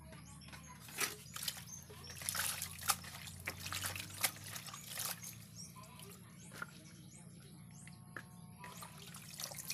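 Hands swishing Malabar spinach (alogbati) leaves in a basin of water, with splashing and dripping. The splashing is busiest over the first five seconds, then quieter.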